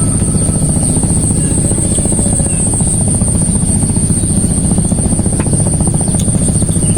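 A small engine running steadily at an even speed, with a fast regular pulse and a steady high whine above it.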